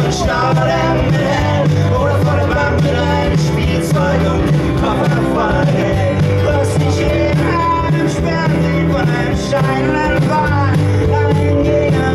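Live band playing a song, with a man singing lead over strummed acoustic guitar and keyboards.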